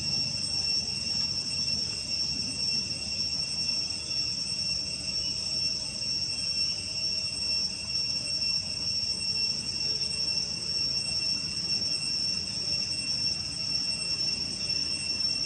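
Insects droning steadily in the forest, a high, unbroken whine that does not change, with a faint low rumble underneath.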